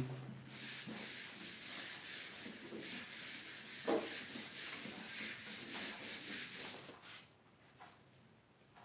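Whiteboard duster rubbing over a marker whiteboard, erasing writing in quick repeated strokes, with a light knock about four seconds in; the rubbing stops about seven seconds in.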